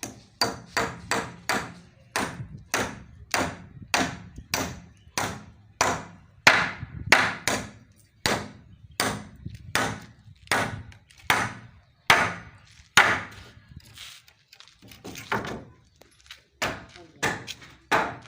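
A tool strikes timber in a steady run of sharp blows, about two a second, with a short break about fourteen seconds in.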